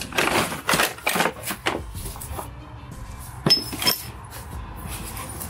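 Metal tools and screwdriver bits clinking and knocking as they are handled: a quick run of clinks in the first couple of seconds, then two sharp clinks with a brief ring about three and a half seconds in. Faint background music underneath.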